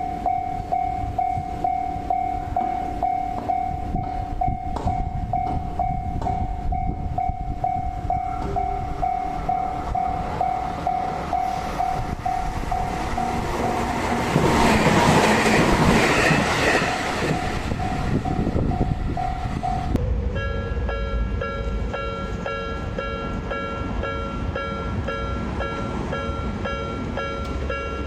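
Japanese level-crossing warning bell ringing steadily, about two strikes a second, as a train runs through the crossing, loudest a little past halfway. About two-thirds of the way in it cuts to a different-sounding crossing bell, ringing at the same pace.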